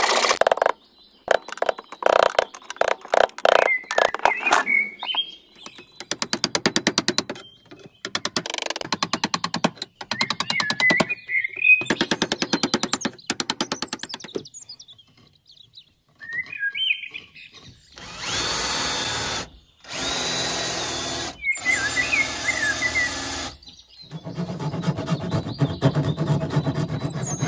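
Woodworking on old planks: a handsaw cutting in rhythmic strokes, then fast scratching strokes on the wood. Past the middle a power drill runs in several short bursts, followed by a steadier run. Short bird chirps come in now and then.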